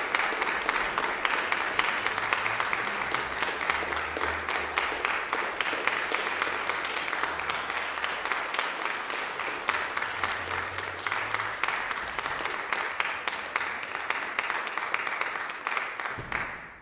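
Audience applauding, a dense patter of many hands clapping that slowly thins and fades out near the end.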